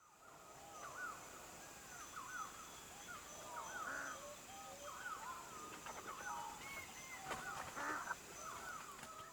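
Several birds calling over one another, a busy run of short, quick calls that sweep up and down in pitch.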